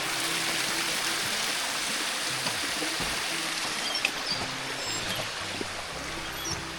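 A small hill stream flowing steadily, an even rush of running water.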